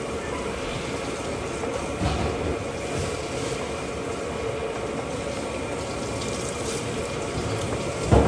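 Water running steadily from a tap or hose, with a sharp knock near the end.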